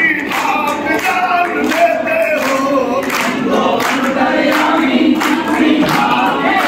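A congregation of many voices singing a devotional hymn together over a steady beat of about two strokes a second.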